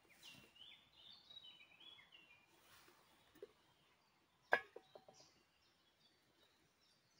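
Faint songbird song: a run of short, high notes stepping up and down for about two seconds. About four and a half seconds in, a single sharp knock with a brief metallic ring.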